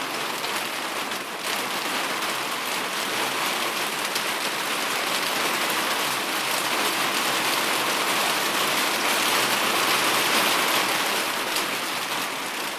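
Steady rain falling, an even hiss of drops with no thunder, growing slightly louder in the second half.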